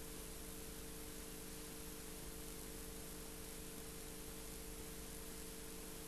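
Steady hiss with a faint steady hum underneath, unchanging throughout: background noise of an old video recording, with no other sound.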